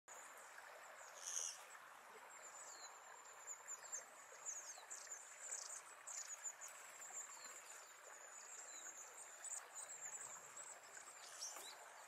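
Faint outdoor ambience: a steady high insect trill runs throughout, with many short, high, downward-sliding bird call notes over a soft hiss of distant background noise. One louder short rasp comes about a second in.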